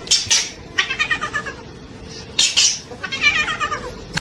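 Animal calls in two rounds: each round is a couple of short, sharp noisy bursts followed by a wavering pitched call that falls in pitch, about a second and a half long.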